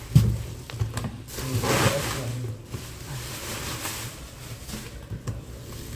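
Cardboard packaging being handled: a dull thump just after the start as the outer carton comes off the inner box, then a few light knocks and a stretch of cardboard scraping and plastic bubble wrap rustling about two seconds in.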